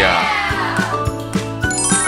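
Upbeat background music with a steady beat, opening with a sound effect that slides down in pitch over about a second; bright tinkling notes come in near the end.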